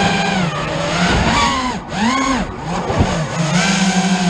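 A motor running and being throttled up and down, its pitch swinging up and back down several times in quick arcs around the middle, then settling back to a steady tone.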